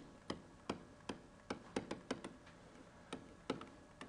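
A stylus tapping against a tablet surface while handwriting: a string of faint, sharp, irregular ticks, about three a second.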